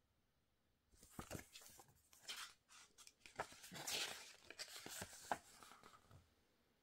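Paper rustling and crinkling with small sharp crackles as a printed booklet is opened and its pages flipped by hand. It starts about a second in and dies away near the end.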